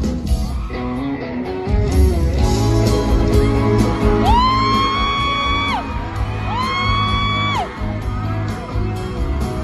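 Live band music with guitar. Near the middle come two long high notes, each sliding up into a held pitch.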